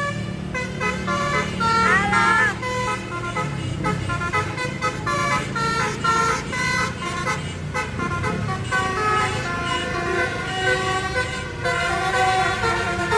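Basuri telolet multi-tone bus horns playing melodies in quick stepped notes, with a brief warbling glide about two seconds in, over the low running of the buses' engines.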